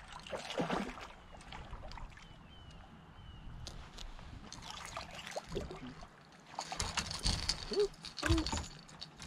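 Wind buffeting the microphone and water lapping at the hull of a bass boat while a bass is played on a rod, then a burst of splashing and rattling near the end as the fish is lifted out at the boat's side.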